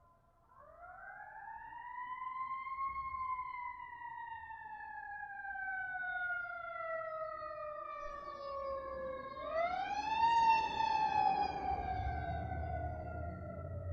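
Fire engine siren in a slow wail: it climbs for about two seconds, winds down slowly over the next several, then climbs again about nine and a half seconds in and starts falling. A low rumble builds near the end.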